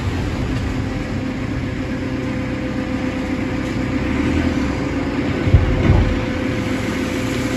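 Farm loader engine running steadily with a constant whine while its bucket scoops wood chips off a concrete floor. A brief heavier low rumble comes about five and a half seconds in.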